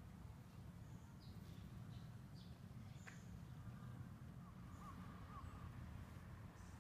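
Near silence: a low steady background rumble with a few faint, short bird chirps.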